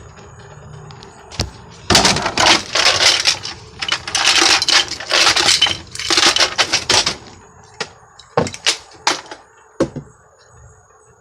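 Hard plastic Nerf toy gun parts clattering and knocking as they are handled and rummaged through: a dense rattle for about five seconds, then a few separate clicks and knocks.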